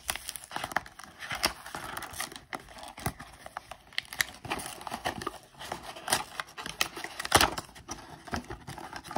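Cardboard mystery box of trading cards being handled and pried at by hand: irregular crinkling, scraping and small taps of the cardboard as it resists opening, with a sharper knock about seven seconds in.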